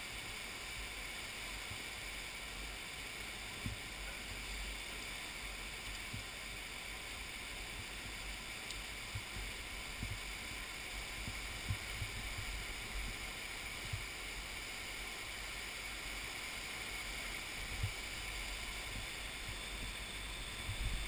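Steady rushing of a debris-laden flash flood surging through a narrow rock gorge, with a few soft low thumps now and then.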